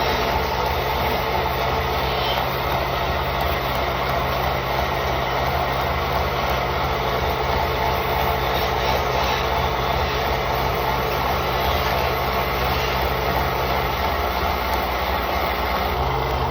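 A woodturning lathe's motor runs with a steady mechanical hum over a low rumble. One of its tones drops away about fourteen seconds in and comes back near the end.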